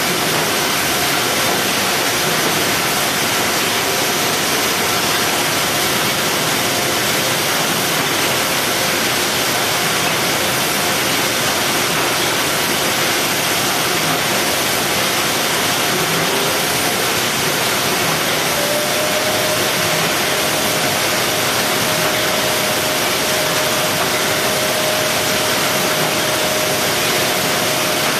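Steady machinery noise from a robotic box-palletizing line, a loud even hiss-like din with faint motor whines. About two-thirds of the way through, one whine rises a little and then holds steady.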